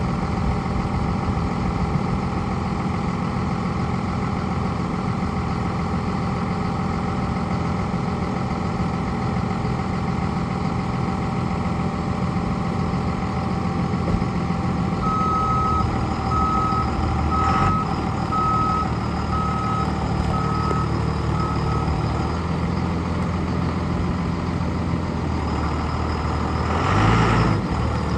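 Dodge Ram 3500 dump truck's engine running steadily, with a back-up alarm beeping evenly for about seven seconds in the middle, roughly one and a half beeps a second. A brief louder rush comes near the end.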